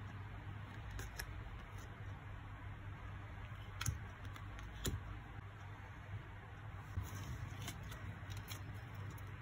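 Foil trading cards being handled and set down on a wooden table: faint rustling with a few sharp taps, the loudest about four and five seconds in, over a steady low hum.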